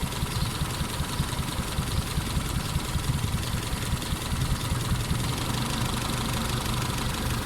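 Toyota 4K four-cylinder engine idling unevenly with one spark plug wire pulled off, so that cylinder isn't firing.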